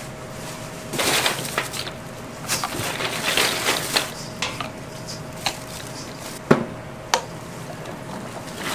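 Plastic bottles being handled and capped on a stainless steel counter: irregular clattering and rustling of the bottles, then sharp plastic clicks, the loudest about six and a half seconds in and another a moment later.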